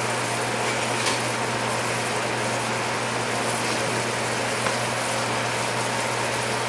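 Steady hiss of a sauté pan simmering: chicken and vegetables cooking in white wine as it reduces, with a low steady hum underneath.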